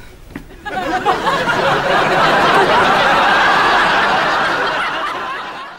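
Studio audience laughing, swelling about a second in, holding loud, then dying away near the end.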